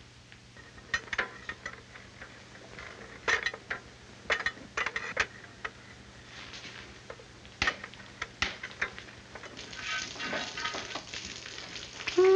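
Metal pipe being worked: a string of irregular sharp knocks and clanks, then a steady hiss that starts about ten seconds in.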